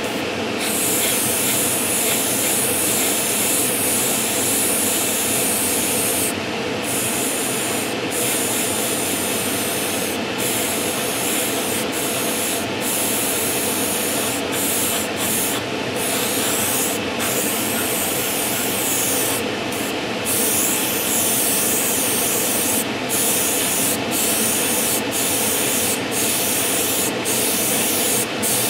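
Airbrush spraying thinned paint: a steady hiss of air with many brief breaks.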